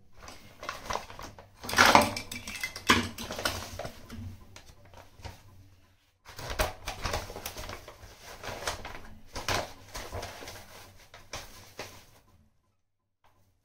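Plastic bag crinkling and rustling as fresh leafy greens are handled, with irregular clicks and knocks. It stops briefly about six seconds in, then goes on and fades out near the end.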